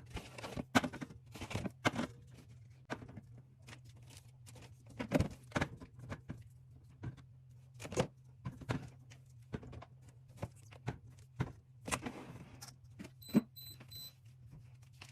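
Drink cans and bottles clinking and knocking irregularly as they are set into a fridge, over a steady low hum. A few short, high electronic beeps sound near the end.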